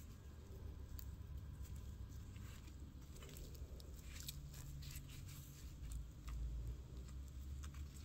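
Crisp pan-fried stuffed flatbread being torn apart by hand: scattered small crackles of the crust over a steady low hum.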